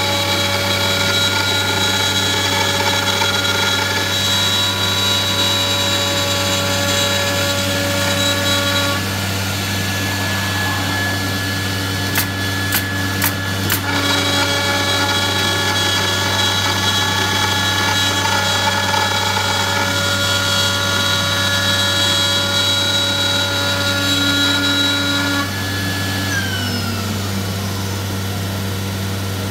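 CNC router spindle cutting through a wooden sheet with a steady whine of several tones over a constant low hum. About twelve seconds in, a pneumatic nail gun fires four quick shots into the sheet. Near the end the spindle stops and winds down with a falling whine, leaving only the hum.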